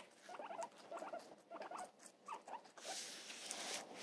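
Guinea pigs chewing cucumber, a quick run of small, faint crunches repeating a few times a second. A soft rustle comes in briefly near the end.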